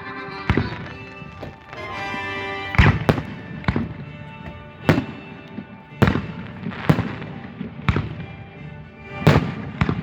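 Fireworks going off, about eight sharp bangs at uneven intervals, some close together, over steady background music.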